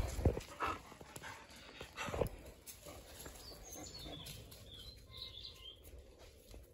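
Dogs playing: short, sharp dog vocalisations in a few bursts, loudest right at the start and again about two seconds in.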